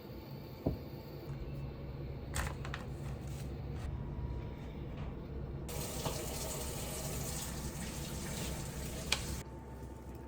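Kitchen tap running for a few seconds, turned on about halfway through and shut off abruptly near the end. Before it, a few sharp clicks and knocks over a low steady hum.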